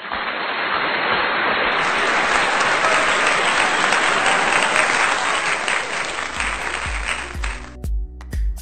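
Applause from a crowd that stops abruptly near the end, as electronic dance music with a heavy bass beat starts up.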